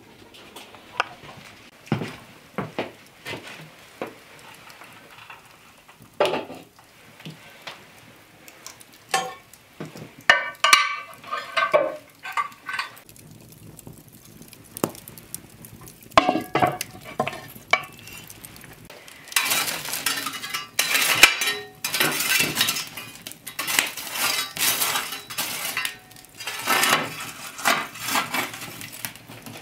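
Glazed ceramic cups on a ceramic tray clinking and knocking as they are handled and set into a cast-iron Dutch oven. From about two-thirds of the way in, a metal fire shovel scrapes and scoops through hot coals and ash on a stone hearth.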